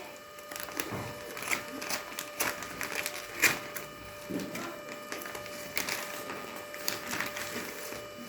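Packaging and a small electronic panel being handled by hand: irregular clicks, taps and short rustles, one sharper click about three and a half seconds in. A faint steady hum runs underneath.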